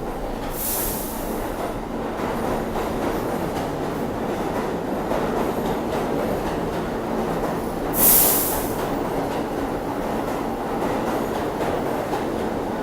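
New York City subway train running through the station, with a steady rumble of wheels on rail. Two short high hisses stand out, one just after the start and a louder one about eight seconds in.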